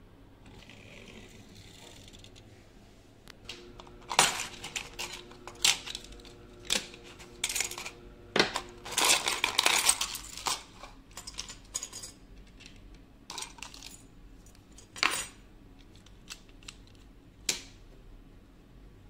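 Small plastic and metal parts of a dismantled diecast model car clicking and clattering against a clear plastic bowl and the tabletop as they are handled. The clicks come in irregular bunches, starting a few seconds in and thickest in the middle, then thinning to scattered single clicks.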